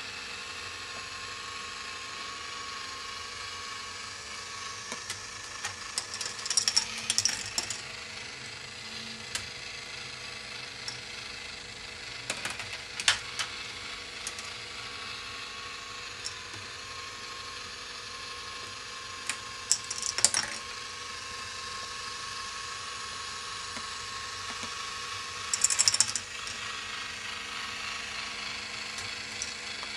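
K'nex ball machine running: a steady hum from its motor and plastic gears, broken four times by short bursts of clattering clicks, about every six or seven seconds, as balls rattle through the plastic track.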